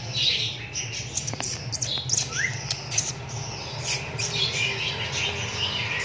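Many caged birds squawking and chirping at once in quick, overlapping short calls, over a steady low hum.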